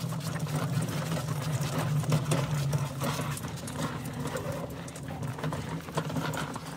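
A DeWalt DXGNR8000 portable generator, engine off, being dragged on its wheels across a snowy, icy driveway: the wheels give a steady low rumble with irregular crunching and clatter, and footsteps crunch in the snow.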